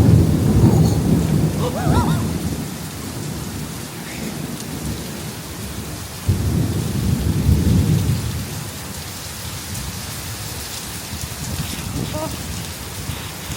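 Thunderstorm: heavy rain falling steadily, with two loud rolls of thunder, one right at the start and another about six seconds in, each rumbling for a couple of seconds.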